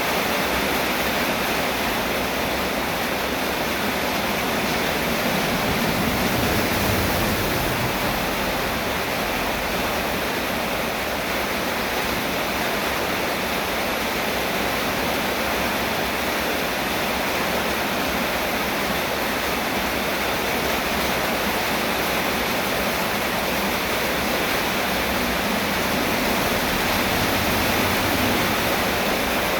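Steady heavy rain, an even continuous hiss with no separate drops or pauses.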